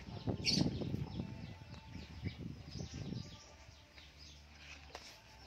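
Small birds chirping rapidly and repeatedly in the background, short falling chirps over and over. During the first three seconds a louder jumble of low knocks and rustling lies under them, with a sharp brighter burst about half a second in.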